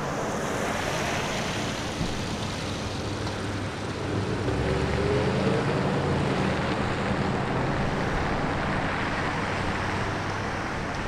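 Distant SpaceX Falcon 9 rocket engines: a steady rumble heard from about two miles away, swelling a little midway.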